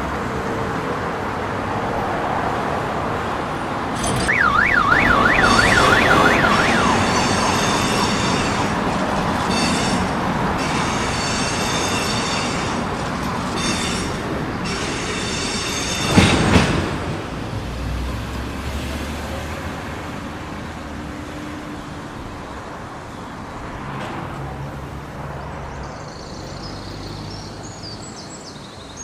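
City street din of traffic and trams, with an emergency-vehicle siren warbling rapidly for about two seconds, about four seconds in. A short loud blast comes about sixteen seconds in, and the din then slowly fades.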